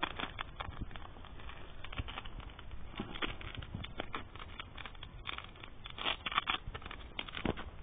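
Irregular rustling and scratching of hands gripping and turning a plush toy bear's fabric close to the microphone, with scattered soft clicks.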